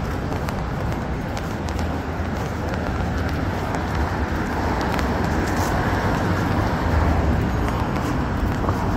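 City street traffic: cars driving through an intersection, a steady rumble of engines and tyres that swells a little about seven seconds in.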